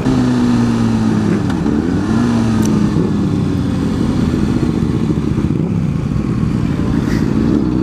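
Motorcycle engine heard from the rider's own bike, its note falling as it slows, briefly dipping and rising about two seconds in, then running steadily before climbing again near the end. Wind rushes over the helmet-mounted microphone.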